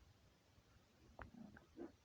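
Near silence: room tone, with a faint click a little past halfway and a few soft handling noises just after it.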